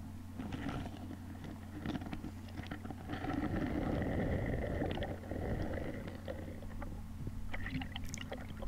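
Underwater, crunchy crackling and scraping as a kina (sea urchin) is pried off the rock, densest and loudest a few seconds in, over a steady low hum.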